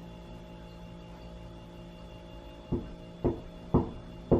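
Knuckles knocking on a hotel room wall to the room next door: four sharp knocks about half a second apart, starting near the middle. Before them, a steady low room hum.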